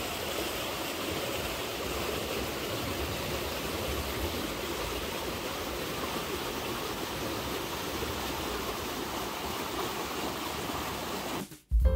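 Steady rushing of a stream running high after heavy rain. It cuts off abruptly near the end.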